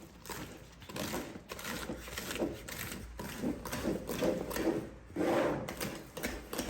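Chocolate cake batter being mixed in a bowl: a run of uneven stirring and scraping strokes.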